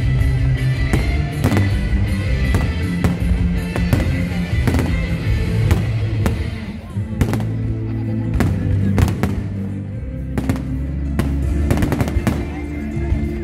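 Aerial fireworks shells bursting in quick, irregular succession, many sharp bangs, over loud music with a heavy bass line.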